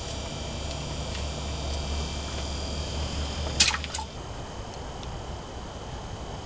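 A steady low hum, broken about three and a half seconds in by a quick cluster of two or three sharp clicks; the hum stops just after them.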